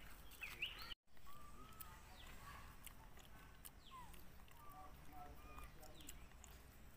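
Faint, short chirping animal calls scattered through, several of them sliding up or down in pitch, over a quiet background with light clicks; the sound drops out completely for an instant about a second in.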